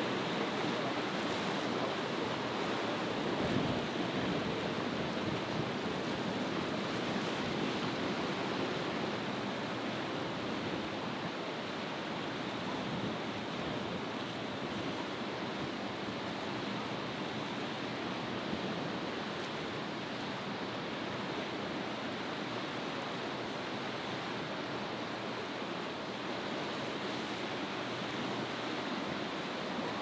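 Choppy sea and breaking surf rushing steadily, with wind.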